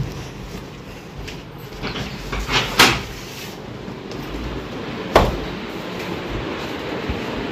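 A house door being opened: a scraping rattle from the door and its latch about three seconds in, then a single sharp knock about five seconds in.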